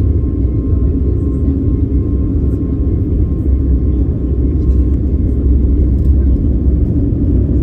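Cabin noise of an Airbus A321neo rolling at speed along the runway: a loud, steady, deep rumble of engines and wheels, with a faint steady whine above it.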